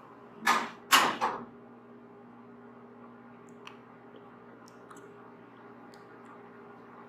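Two brush strokes swishing across a microphone, about half a second and a second in, then only faint scattered ticks over a steady low hum.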